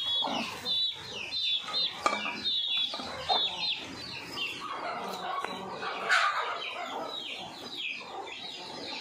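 Chickens calling nearby, many short high cheeps a few times a second with a louder cluck about six seconds in, over soft scraping of thick wet rice paste being scooped off a stone grinder by hand.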